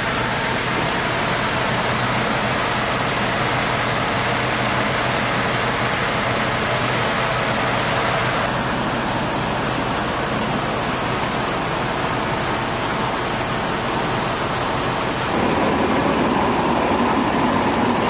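Fire engine's deck gun putting a heavy water stream onto a fire: a steady rushing hiss over the low hum of the engine driving its pump. The sound changes abruptly twice, and in the last few seconds the engine is louder.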